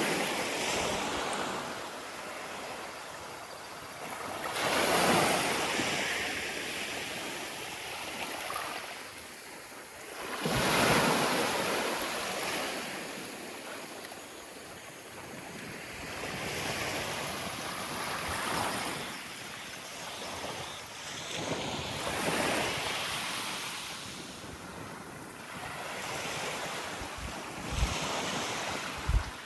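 Small waves breaking and washing up the shore in slow surges, one every five or six seconds, with some wind buffeting the microphone.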